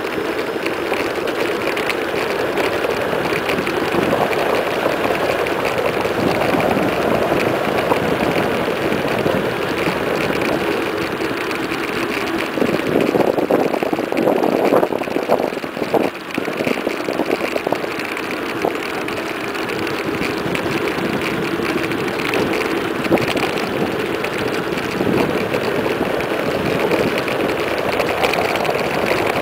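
Wind rushing over the microphone and tyre noise from a mountain bike descending fast on asphalt. A steady, loud rush that swells and wavers for a few seconds about halfway through.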